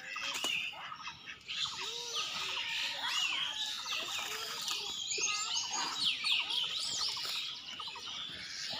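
Many small birds chirping and twittering at once, a dense chorus of short overlapping calls that is busiest in the middle.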